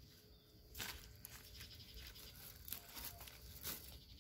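Faint, brief rustles of leaves and stems being brushed and handled, three or so times, over a quiet background.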